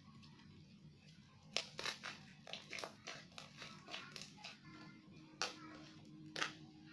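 Slime being kneaded and squished by hand as white air-dry clay is worked into it, with irregular sticky clicks and pops starting about a second and a half in.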